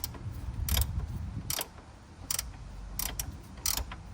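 Hand ratchet wrench clicking in short bursts on each return swing, about once every three-quarters of a second, as an engine mount bolt is worked loose.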